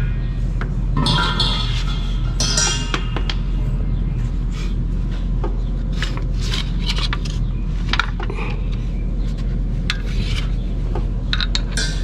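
Refrigeration vacuum pump running with a steady low hum as it evacuates an air-conditioner's refrigerant lines. Brass hose fittings clink and scrape against the pump's metal port many times over.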